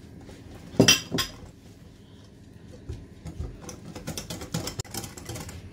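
Wire balloon whisk clinking against a glass mixing bowl while cocoa powder is whisked into cake batter. Two sharp clinks come about a second in, then a quick run of clinking strokes from about three seconds in.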